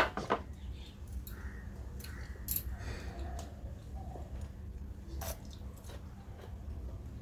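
A sharp knock at the start as a drinking glass is set down on the table, then wet chewing with a few short crisp bites into a raw cucumber slice, the clearest about five seconds in.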